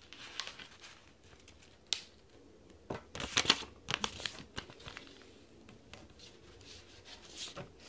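A sheet of paper being folded by hand on a tabletop and its crease pressed flat, rustling and crinkling in short irregular swishes, the loudest cluster about three to four seconds in.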